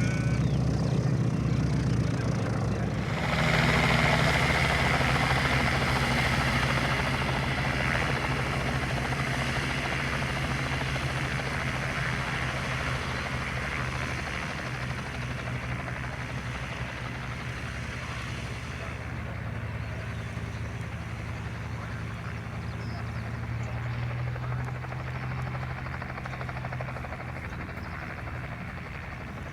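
Piston aircraft engine running steadily. About three seconds in it swells to a louder, rushing full-power sound, then slowly fades as the plane moves away.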